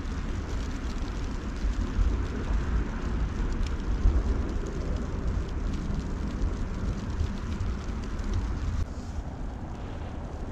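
Wind buffeting the microphone in a snowstorm: an irregular low rumble that eases a little near the end.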